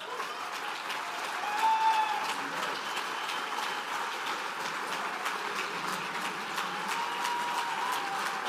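Large audience applauding and cheering, with a few voices calling out above it about two seconds in and again near the end.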